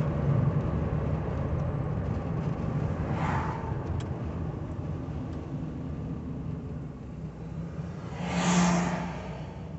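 Steady engine and road noise inside a 1985 Cadillac Cimarron's cabin while cruising. An oncoming van rushes past near the end, which is the loudest moment, and a fainter whoosh of another passing vehicle comes about three seconds in.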